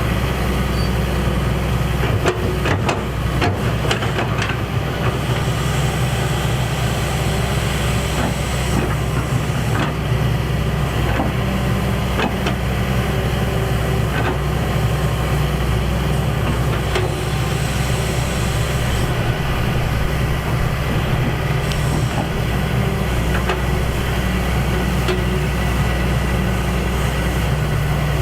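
Excavator's heavy diesel engine running steadily, with a run of clanks and knocks about two to five seconds in.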